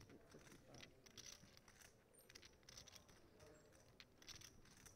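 Faint, irregular clicking of clay poker chips being handled and riffled at the table, under near-silent room tone.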